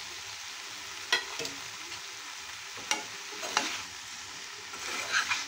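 Steel spatula stirring chopped spine gourd into a frying tomato-onion masala in a steel pot. A steady sizzle runs under a few sharp scrapes and clinks of the spatula against the pot.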